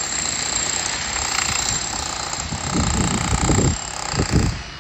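Rapid, steady hammering of a power chisel chipping concrete out of brickwork, with a few low rumbles in the second half.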